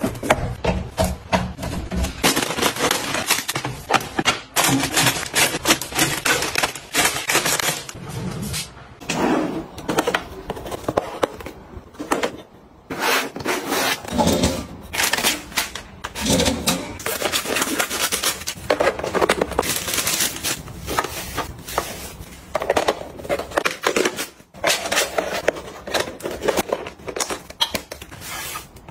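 Hands handling packaging: cardboard boxes and packets set down on shelves and in a drawer with many quick taps and clicks, and cardboard and plastic wrap rustling and scraping.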